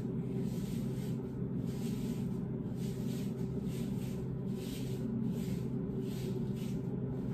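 Gloved hands squeezing and rubbing wet hair dye down strands of hair, a soft rhythmic squishing rustle about twice a second, over a steady low hum.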